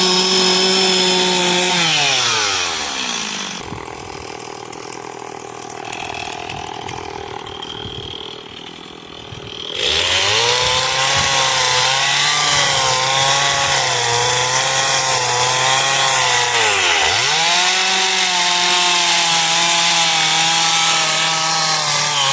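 Two-stroke chainsaw cutting wood at high revs. About three seconds in it is let off to a lower idle, then revved up again about ten seconds in, its pitch wavering as it cuts. It is let off briefly once more a few seconds later.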